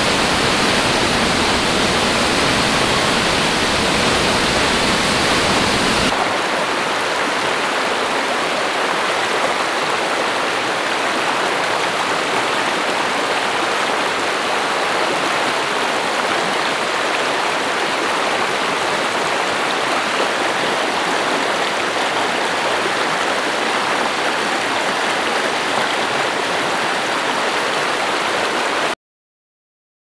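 Stream water rushing over rocks in a shallow riffle, a steady, even rush with no distinct splashes. About six seconds in the sound changes abruptly as the deep rumble beneath it falls away, and it cuts off suddenly about a second before the end.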